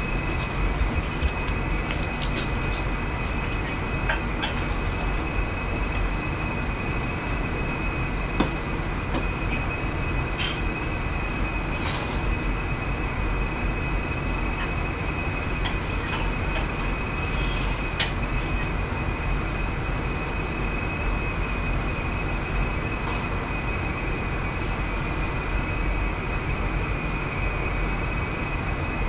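Commercial kitchen ventilation running steadily: a constant rushing noise with a thin high whine on top. A few light clicks and clinks of utensils on the steel counter come through here and there.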